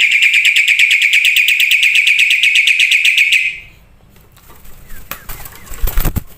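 A bird's fast, even trill held on one high pitch for nearly four seconds, then stopping; after it come softer, scattered chips and clicks.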